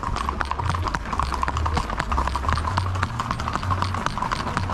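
Horses' hooves clip-clopping, many quick hoofbeats overlapping in a dense, unbroken patter from several horses moving together, over a steady low rumble.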